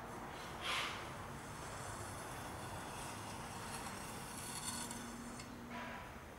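A rake scraping through fine gravel in slow strokes: a short scrape about a second in, a fainter rasping stretch around four to five seconds, and another scrape near the end.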